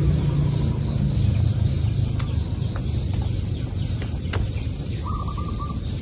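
Outdoor ambience: a steady low rumble under small birds chirping. A quick run of short, evenly spaced high chirps fills the first half, a brief trill comes near the end, and a few sharp clicks fall in between.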